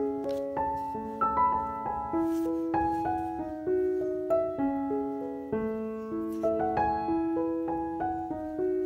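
Background piano music: a slow, gentle melody of single struck notes, a new note about every half second.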